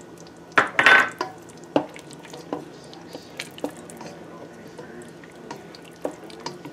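A plastic spoon stirring tomato stew in a stainless-steel pot, scraping and clicking against the pot. There are two loud clinks against the pot about a second in.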